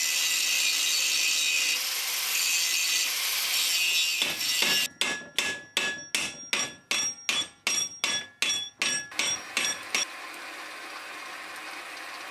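Angle grinder cutting metal held in a bench vise, a steady grinding noise for about four seconds. Then about a dozen hammer blows on metal, roughly two a second, each ringing briefly, followed by a quieter steady running sound near the end.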